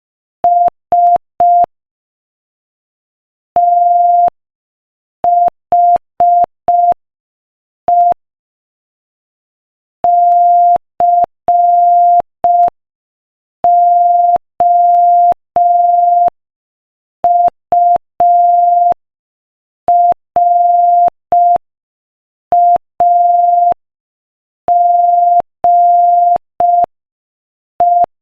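Morse code sent at 5 words per minute as a single steady mid-pitched sine tone, keyed on and off in short dots and longer dashes, with longer pauses between letters and words. Each mark starts and stops with a faint click.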